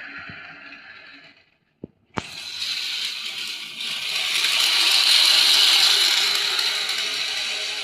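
Miniature train's small electric motor and gears running with a steady mechanical rattle. The sound breaks off for a moment with two sharp clicks about two seconds in, then returns louder and denser, swelling near the middle.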